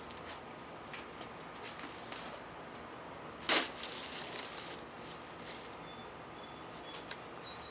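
Faint outdoor background with a few light ticks. About halfway through comes one short crunching rustle: a bag of ice being set down.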